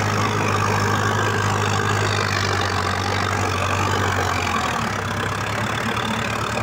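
Preet 6049 tractor's diesel engine running steadily, heard close up from the driver's seat while it pulls an 11-tine tiller through the field. The low engine note shifts slightly about four and a half seconds in.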